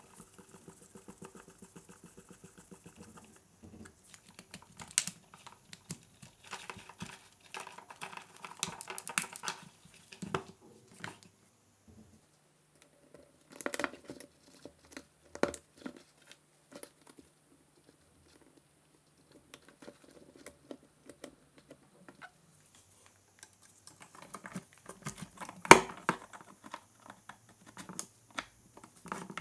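Close handling noise from a cordless drill being reassembled: small clicks, taps and plastic rustles as the motor and gearbox are handled and fitted into the plastic housing. One sharper click comes a little before the end.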